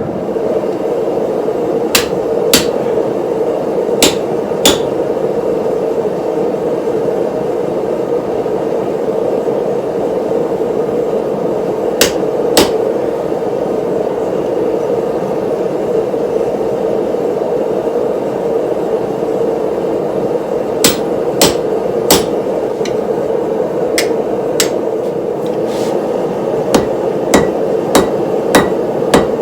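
Hand hammer striking steel as it is forged into a cleaver blade: scattered sharp metallic strikes, often in pairs, coming more often in the last few seconds, over a steady rushing noise.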